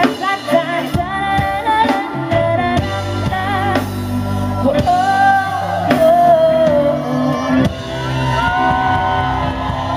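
A live band plays a pop/soul song while a woman sings lead, holding long, wavering notes over guitars, bass and drums, recorded from within the crowd in a small club.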